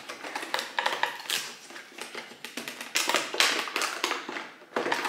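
Cardboard advent calendar door being torn and pried open by hand: a run of small clicks and crackles, with a longer rasping tear about three seconds in.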